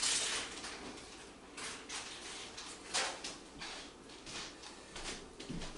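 Raccoons scratching and pawing at a glass door: irregular scratchy rustles, with a few louder scrapes about a second and a half and three seconds in.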